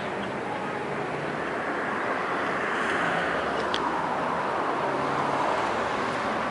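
A car passing on a nearby road: tyre and engine noise swells through the middle and then fades.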